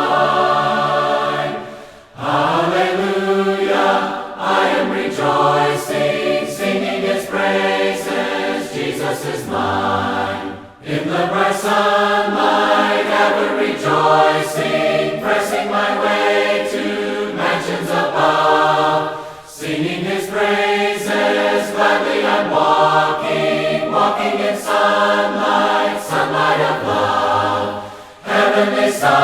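Choir of mixed voices singing a hymn in several parts, in long sustained phrases with a short break between them about every eight or nine seconds.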